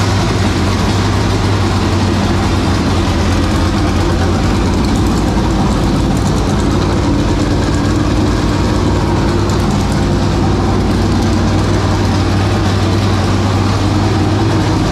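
A 465 cubic inch V8 dirt late model race engine running steadily and loudly, just after being started.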